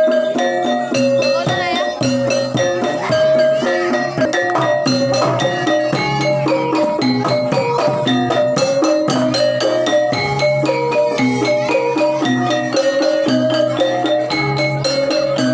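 Javanese gamelan music: metallophones strike quick, repeating melodic notes over a low pulsing bass.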